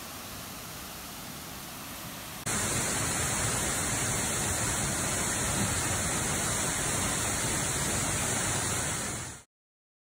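Waterfall rushing steadily; about two and a half seconds in it jumps louder and hissier, then cuts off abruptly near the end.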